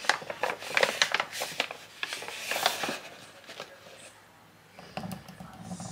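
Crinkling and rustling of a stand-up protein powder pouch as a hand digs a scoop into it: a quick run of small crackles that dies down about halfway through, with a few more near the end.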